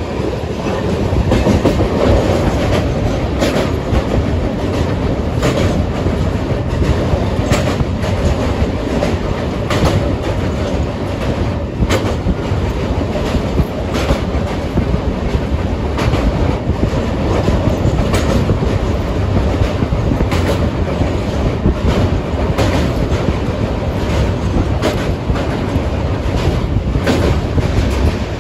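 Express train running at speed across a riveted steel truss bridge: a steady rumble of wheels and coach, with frequent sharp clicks from the wheels passing rail joints.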